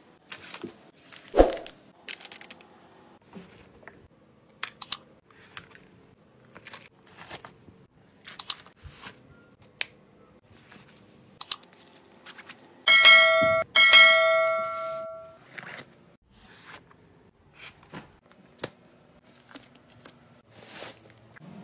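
Soft rustling and small clicks from hands handling a fabric travel organizer and opening its zippered pockets. About two-thirds of the way through, a bright bell-like chime rings twice and fades.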